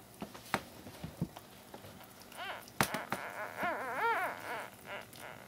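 Newborn puppy squealing: a short cry a little over two seconds in, then a longer wavering squeal about a second later. Wet clicking smacks from the mother dog licking it.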